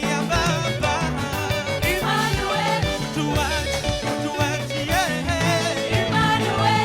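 Gospel worship band playing, with singing over a steady bass line and drums.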